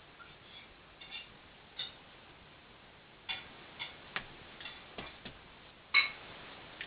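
Scattered light clicks and taps at an uneven pace, the loudest about six seconds in: cats pouncing on and batting a Kewpie doll's body.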